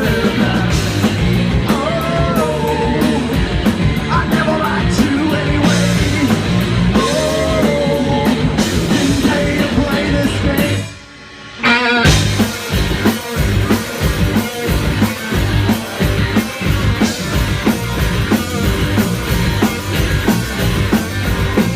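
Live rock band playing loud, with drum kit, electric guitar and a singer. About eleven seconds in the band cuts out for roughly a second, then comes back in at full volume.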